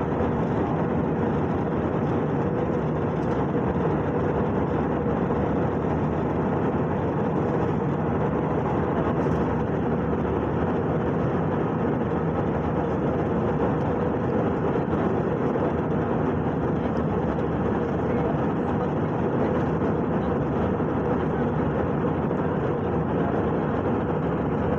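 Steady roar of jet engines and airflow heard inside an airliner's passenger cabin in flight, with a faint steady hum running through it.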